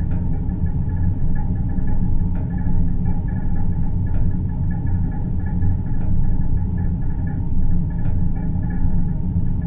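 Synthesized deep-space ambient drone: a steady low rumble and hum with faint high tones above it, and a faint click about every two seconds.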